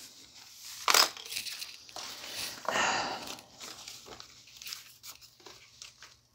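Papers and sticky notes rustling and crinkling as they are shuffled and lifted off a laptop lid, with a sharp knock about a second in as things are moved on the desk.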